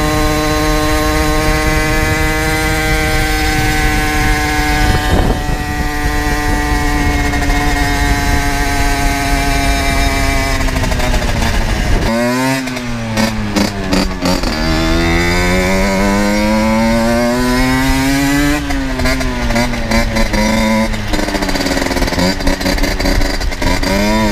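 Generic Trigger SM 50's 50cc two-stroke single-cylinder engine with an aftermarket exhaust, heard from on board while riding. It is held at steady high revs, then the revs fall away. About halfway through they begin to climb and drop several times, as the engine pulls through the gears, over wind noise.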